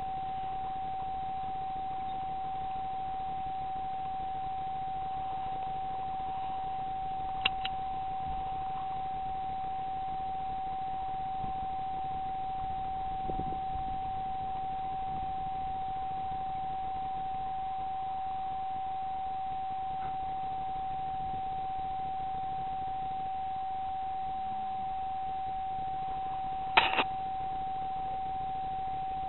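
A steady electronic whine, one unchanging pitch, over faint hiss, typical of a night-vision scope recorder's own noise. Two short sharp clicks cut through it, one about seven seconds in and a quick cluster of clicks near the end.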